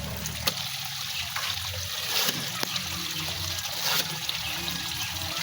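River water trickling and running steadily, with a few sharp clicks or snaps over it.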